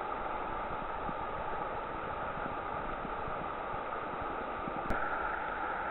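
Steady rushing of river water, with a brief click about five seconds in.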